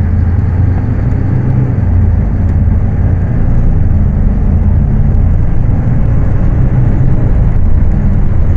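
Scania K310UA articulated bus's diesel engine running while the bus is under way, heard from aboard: a steady low drone with small rises and falls in load.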